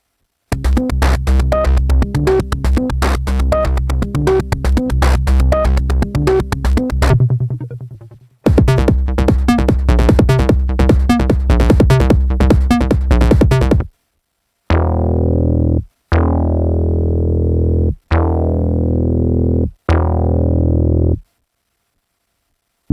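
Dave Smith Mopho monophonic analog synthesizer playing preset sounds. It plays two runs of fast repeating notes, then four long low bass notes, each starting bright and quickly darkening as the filter closes, then stops.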